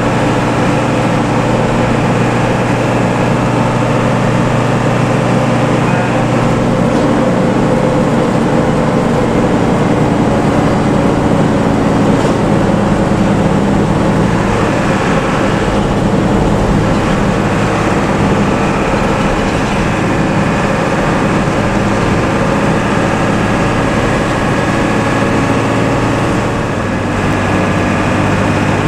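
Bus diesel engine running steadily under way, a heavy even drone with a strong low hum, with road and traffic noise. About two seconds before the end the level dips briefly and the hum drops in pitch.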